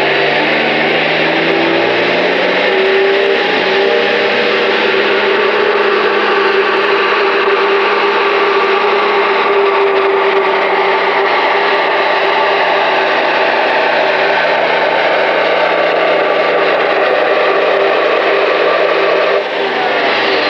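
Pulling tractor's engine run at full throttle hauling a weight sled. Its pitch climbs in the first couple of seconds, holds high and steady, and drops away near the end as the pull ends.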